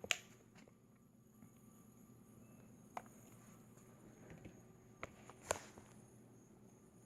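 Quiet low room tone broken by a few sharp clicks and knocks: the loudest just after the start and about five and a half seconds in, with smaller ones about three and five seconds in.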